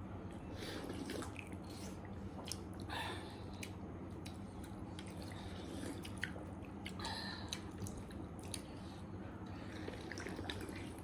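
Close-miked eating of noodle soup: wet chewing and mouth sounds with scattered small clicks and a few short wet slurps or sips.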